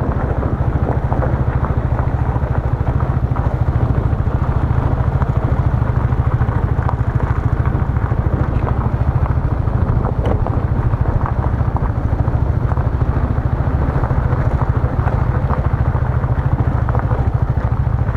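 Motorbike engine running steadily while riding along, with a heavy, even low rumble throughout.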